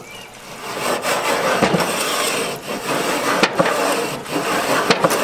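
A new wooden grill-scraper paddle scraped hard back and forth over hot grill grates: a rough, loud rasping, stroke after stroke about once a second, starting about a second in. The wood is wearing and charring into grooves that fit the grate bars.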